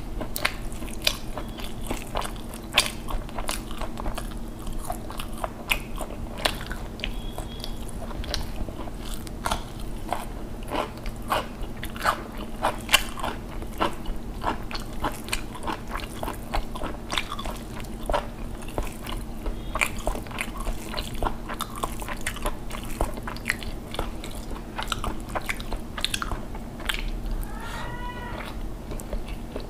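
Close-miked eating sounds: wet chewing and mouth smacking of hand-fed rice with dal and curry, as a dense stream of short, sharp clicks.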